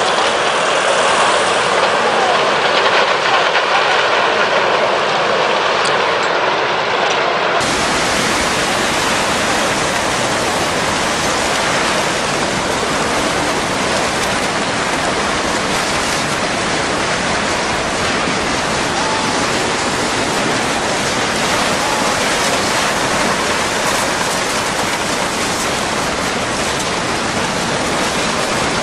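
Tsunami floodwater rushing with a loud, steady roar. About eight seconds in the sound changes abruptly to a fuller, deeper roar.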